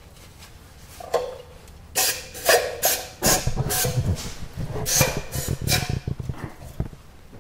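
Cleaner sprayed through a Tecumseh snowblower carburetor's passages in several short hissing bursts, with knocks and rubbing of the parts being handled in between.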